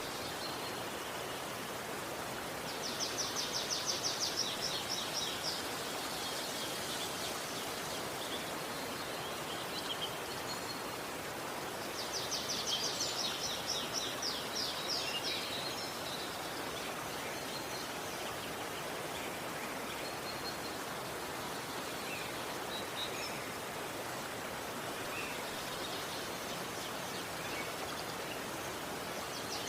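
Steady rushing of a river, with a bird's rapid high trill sounding twice for about three seconds each, and a few faint chirps in between.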